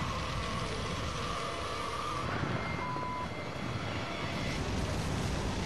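Loud steady roar of tornado wind rumbling and buffeting, with a short beep about three seconds in.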